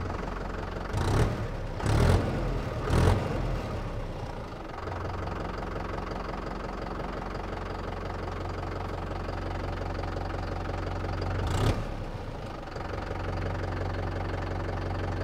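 Mahindra Yuvo 475 DI tractor's four-cylinder diesel engine idling steadily just after being started. Three short louder bursts come about a second apart in the first three seconds, and another near the end.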